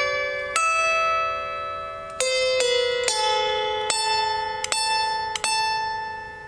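Slow solo harp: single plucked notes, about seven of them one after another, each ringing on and fading before the next.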